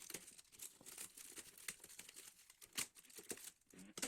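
Faint crinkling and tearing of packaging as a parcel is unwrapped: an irregular run of crackles with one sharper snap near three seconds in.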